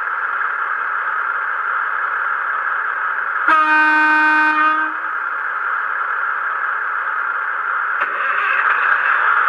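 Sound decoder in a Hornby Class 153 Sprinter model sounding the unit's horn: one steady note lasting about a second and a half. It plays over a constant hissing diesel-idle sound, all through the model's small speaker.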